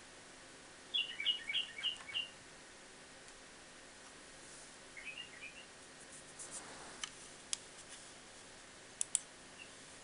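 White-eared bulbul giving a quick run of about five loud chirps about a second in, then a softer, shorter run of chirps around five seconds in. A few sharp clicks come in the second half.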